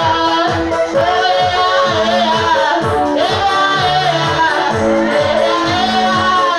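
Live gospel song: girls' voices singing over an electric keyboard playing held chords and a steady, even drum beat.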